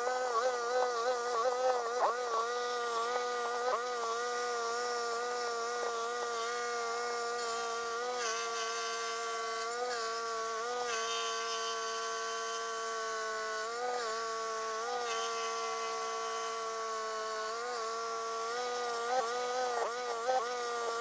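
Stump grinder engine running at high speed with a steady pitch that sags briefly several times as the cutter wheel takes load, with a hiss of wood being chipped above it.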